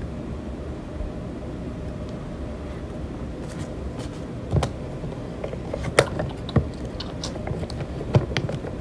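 Plastic baby-food cup, spoon and plastic containers being handled on a table: a few short, light clicks and taps, the sharpest about six seconds in, over a steady low background hum.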